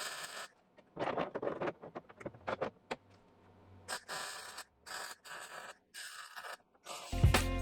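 Short, irregular scrapes and rubs from hand work on the car's bodywork, in quick strokes with brief pauses between them. Music with a steady beat starts near the end.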